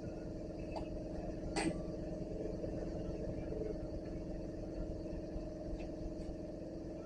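Steady low mechanical hum made of several steady tones, with a few faint ticks and one sharper click about a second and a half in.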